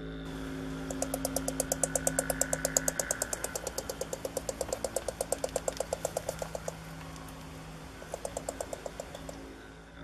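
North American porcupine chattering its teeth: a rapid, even train of sharp clicks, about ten a second, for several seconds, then a shorter burst of the same clicks near the end. Teeth clattering is a porcupine's defensive warning.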